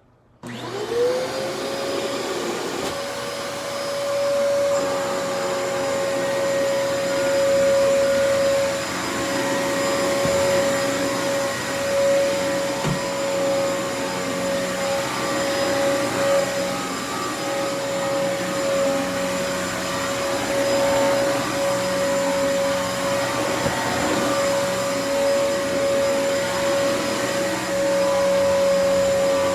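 Dyson DC28 upright vacuum cleaner switched on: its motor spins up within about a second to a steady whine and keeps running.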